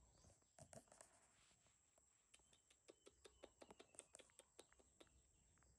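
Near silence with faint, scattered short clicks and a faint steady high hiss.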